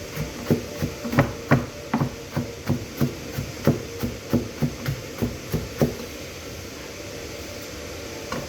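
Knife chopping on a cutting board, mincing onion and garlic: quick, even strokes about three a second that stop about six seconds in.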